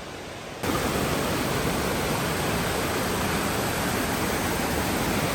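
Waterfall rushing as a loud, steady wash of noise. It comes in abruptly less than a second in, then holds steady.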